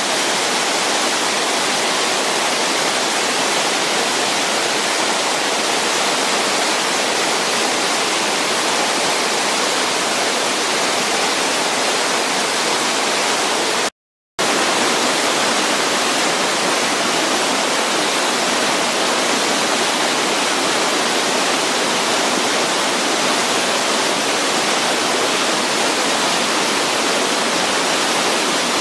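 Steady rushing of water pouring down a waterfall, a dense, even roar. It drops out completely for a split second about halfway through.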